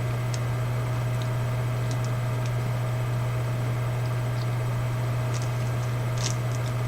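Steady low background hum, with a few faint small clicks scattered through it.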